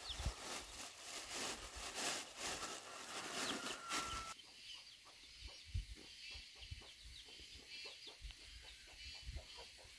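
Chickens clucking over a noisy background. About four seconds in the sound changes abruptly, and a run of quick light taps follows over a quieter background.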